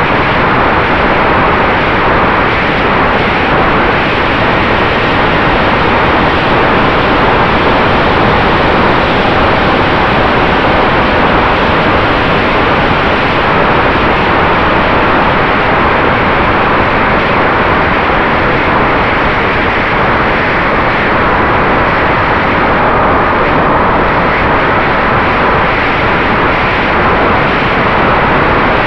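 Steady loud rushing noise of wind and spinning propellers picked up by the onboard camera of a Mini Drak FPV quadcopter in fast flight, with a faint steady tone under it.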